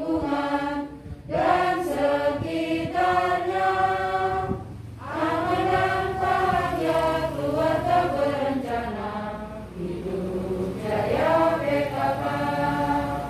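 A group of voices singing a song together with long held notes, pausing briefly between phrases, as the assembly stands at attention.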